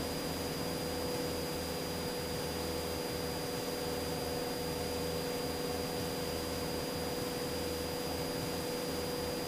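Steady drone of a Cessna 172's engine and propeller in flight, heard inside the cockpit as an even hiss over a low hum with a few constant tones.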